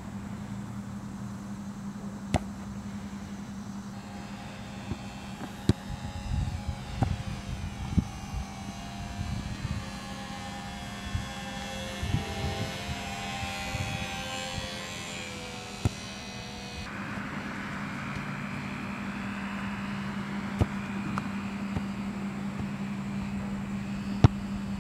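Electric motor and propeller of a small RC airplane whining as it flies past, the pitch wavering, over a steady low hum, with a few sharp knocks and low rumbles.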